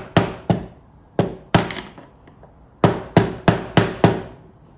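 Hammer tapping on the fuel pump retaining ring of a Honda Foreman 520 ATV's fuel tank, knocking it around counterclockwise to loosen it. About nine sharp metallic strikes come in two quick groups, each with a short ring.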